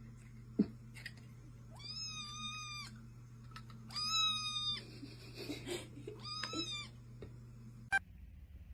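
A cat meowing three times, each meow a fairly high, level-pitched call about half a second to a second long, a second or so apart.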